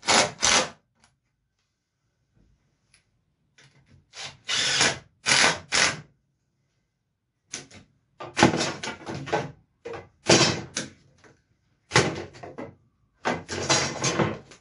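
Cordless drill/driver driving screws into pine boards, running in repeated bursts with short pauses between them. Some bursts are under a second and some last a couple of seconds.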